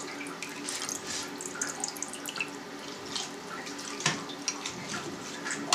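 A plastic spoon scoops wet Imeretian cheese curd out of whey in a stainless-steel pan and drops it into a plastic cheese mould, with whey dripping and splashing and light clicks and knocks from the spoon. One sharper knock comes about four seconds in.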